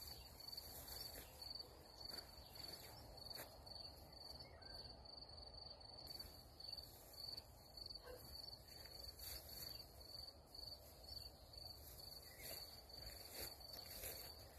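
Faint, steady chirping of a cricket in the grass, a high-pitched pulse repeating a few times a second, over low outdoor hiss and light scattered rustles.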